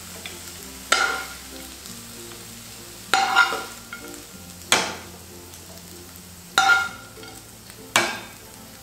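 Perforated steel spatula scraping and knocking against a ceramic serving bowl as cooked red amaranth greens are dished out, with a sharp clink every second or two, over soft background music.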